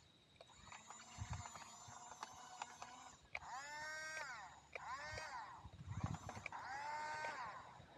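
Small electric drive motors of a toy-grade RC bulldozer whining up and down in pitch in three short bursts as it is driven, with light clicking from its plastic tracks and gears.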